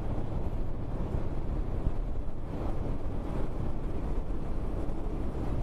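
Motorcycle engine running steadily while riding, mixed with wind rushing over a helmet-mounted action camera's built-in microphone, which has no external mic or wind cover.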